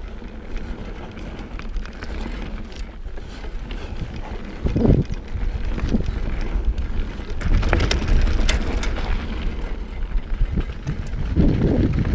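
Mountain bike ridden fast down a dirt and gravel singletrack: tyres rumbling over the ground, wind buffeting the microphone in gusts, and a run of sharp rattles and clacks from the bike over rough ground partway through.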